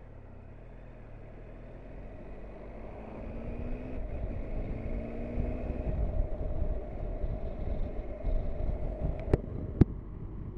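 Triumph Tiger 1200 XRT's three-cylinder engine accelerating away, its pitch rising, with wind noise on the microphone building as speed rises. Two sharp clicks come near the end.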